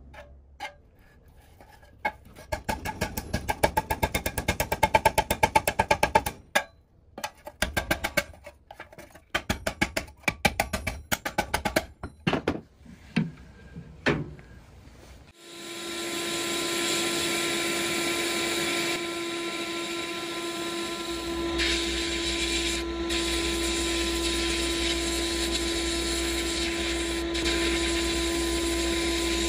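A quick, uneven run of clicks and taps, then about halfway through a media-blasting cabinet starts: a steady hiss of blasting air and grit with a constant hum, stripping old paint from pressed-steel Tonka dump truck parts.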